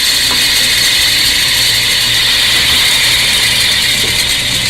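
Loud, steady whirring noise with a low hum, put forward as the sound of a spinning silver metal fidget spinner; it starts and cuts off abruptly.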